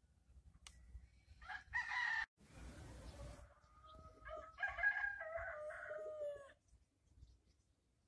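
A rooster crowing: a short call about two seconds in, then a longer crow in the middle that sinks slightly in pitch at its end. A short burst of hiss comes between the two.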